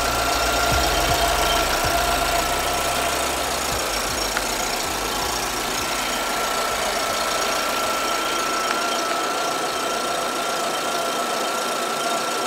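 Chevrolet Tornado pickup's four-cylinder engine idling steadily under the open hood, with a steady high whine over the running noise.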